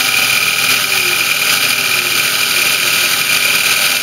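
CNC Optimum BF20L milling machine cutting aluminium with an end mill under flood coolant: a steady high-pitched cutting whine over the spindle noise, with faint lower tones sliding in pitch.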